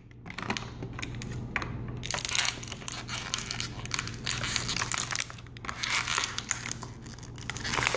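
Crinkly plastic toy packaging being crumpled and torn open, with many sharp crackles. It starts about two seconds in, pauses briefly a little after five seconds, then goes on until near the end.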